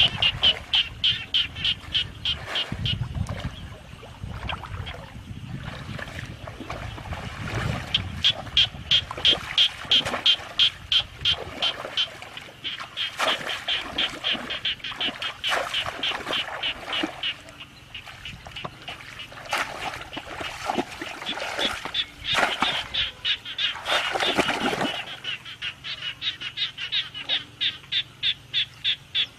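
Animal calls repeated in a fast, steady rhythm, about three or four short high-pitched calls a second, going on almost without a break, as from frogs or waterfowl around a flooded field.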